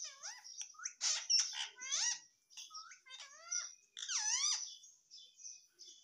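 Indian ringneck parakeet giving a string of short, squeaky calls, each swooping down and then up in pitch, with brief pauses between them.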